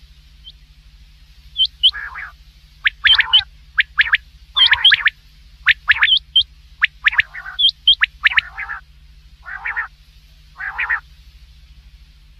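Common quail calling: quick groups of sharp, high notes mixed with lower, noisier calls, repeated a dozen or so times, as on a hunting lure recording. A steady low hum runs underneath.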